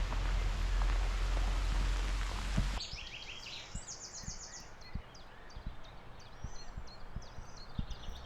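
A steady rushing outdoor noise with a low rumble, cut off suddenly about three seconds in by birdsong: quick runs of high repeated notes over a quiet background, with a few soft clicks.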